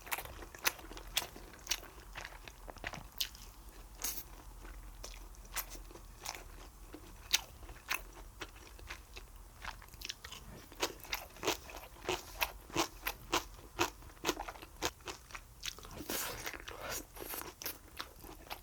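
Close-miked eating: a person chewing and biting food, with many short wet clicks and crunches at an irregular pace, coming thicker in the second half.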